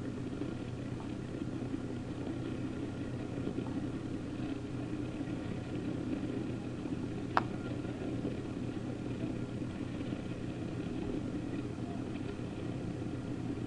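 Boat engine running steadily at low speed, an even low hum. A single sharp click about halfway through.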